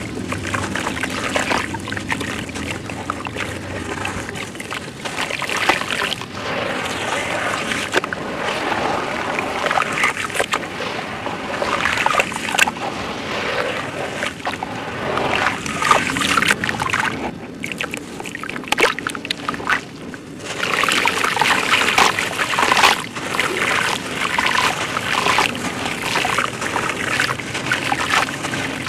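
Hands crumbling wet sand-and-dirt chunks over a tub of muddy water: gritty crackling and crunching mixed with sloshing, splashing and the trickle of sand and water falling back into the tub.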